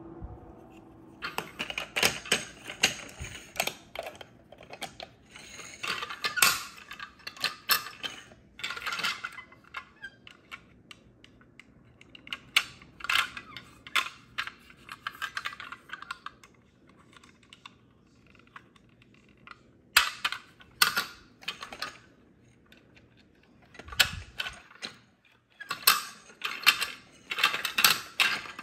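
Hard plastic toy pieces clicking and clattering as a figure and toy train carriages are handled, fitted together and set down on a stone countertop. The clicks come in bursts with short quiet pauses between them.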